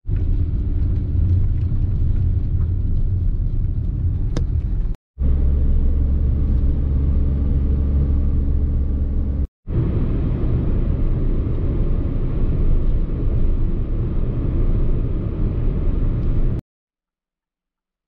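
A car driving: a steady, loud low rumble of engine and road noise. It cuts out abruptly twice, about 5 and 9.5 seconds in, and stops about 16.5 seconds in.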